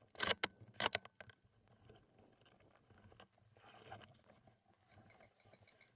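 A few faint, sharp clicks in quick clusters during the first second, then a faint quiet background.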